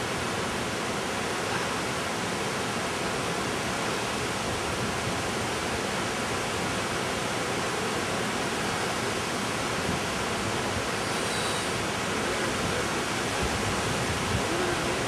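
Waterfall and river cascade rushing over rocks: a steady, unbroken rush of water.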